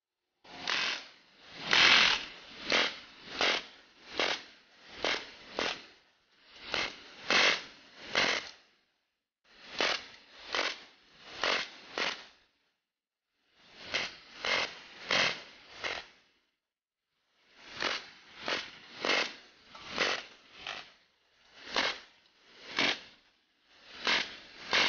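Pneumatic BB machine gun (GSMG) firing steel BBs in strings of sharp pops, about two a second, with short pauses between the strings.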